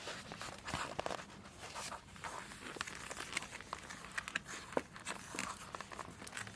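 Foam insulation sheet being handled and pressed into place on a plastic engine cover: soft rustling with many small clicks and scrapes.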